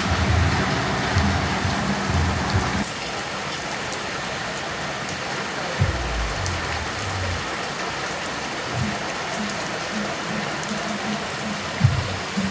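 Heavy rain falling steadily onto a flooded street, a continuous hiss with floodwater running over the pavement.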